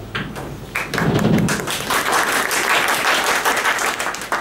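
A small group of people clapping their hands in applause, growing loud about a second in and tailing off near the end.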